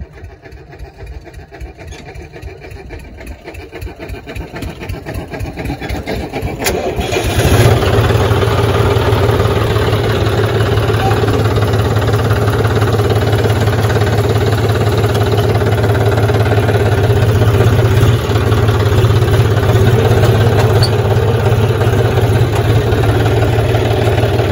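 John Deere tractor's diesel engine turning over with a rhythmic chugging that grows louder, catching about seven seconds in and then running steadily.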